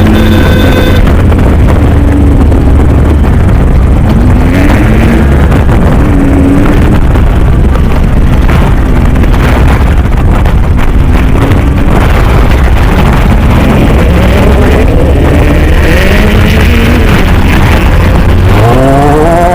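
Off-road race vehicle's engine, heard close and very loud, revving up again and again in rising sweeps over a heavy rumble of wind and rough-terrain noise.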